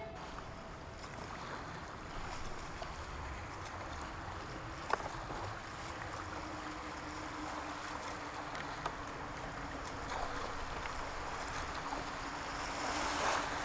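Whitewater rushing around a small kayak running a river rapid, with a single sharp knock about five seconds in; the rush grows louder near the end.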